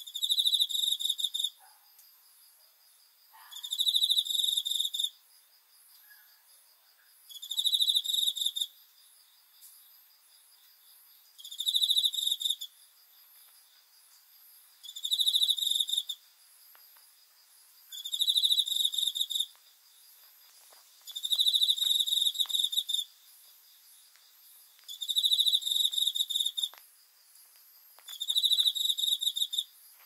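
A male cricket singing: high, rapid trilled phrases about a second and a half long, repeating every three to four seconds, nine times over.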